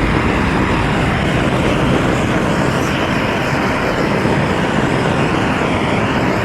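A power tool, a chainsaw or a grinder, runs steadily against the wood of a carved log, giving a loud, even noise with no clear pitch.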